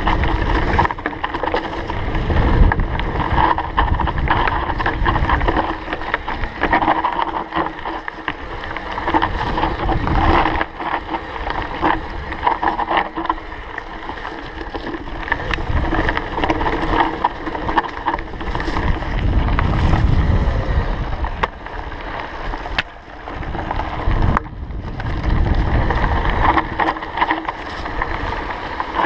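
Canyon Grand Canyon CF SL 8.9 mountain bike ridden down a rough, stony singletrack, with constant rattling and knocking from the bike and tyres over the rocks, and wind buffeting the microphone in gusts.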